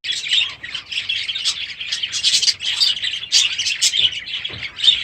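A flock of small aviary parrots chattering and chirping continuously, many short overlapping calls at once.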